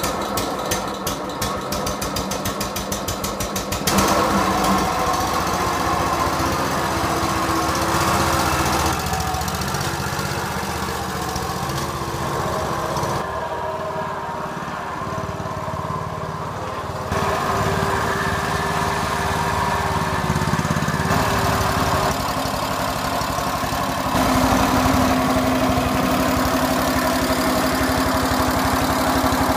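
Belos 272 garden tractor's MAG 1045 engine running. At first it idles with even firing pulses; from about four seconds in it runs louder and faster, its pitch and level shifting several times as the tractor is driven.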